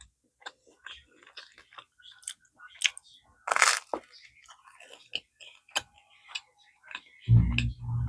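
A person eating close to the microphone: scattered chewing clicks and a louder crunching bite of crusty sourdough bread a little past three seconds in. A low hum begins near the end.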